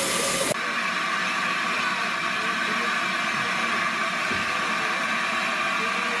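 Standing LNER A4 Pacific steam locomotive 60009 'Union of South Africa' with steam up, hissing steadily. A louder, fuller hiss cuts off abruptly about half a second in.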